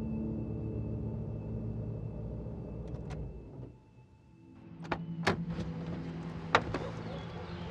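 Car driving, a steady low rumble heard from inside the cabin, which fades out a little before halfway. Then a few sharp clicks of a car door's handle and latch as the driver's door is opened, the loudest near the end.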